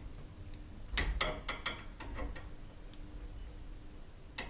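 Steel winding bars clinking in the holes of a garage door torsion spring's winding cone as the spring is wound by hand. A quick cluster of sharp metallic clicks comes about a second in, and one more near the end.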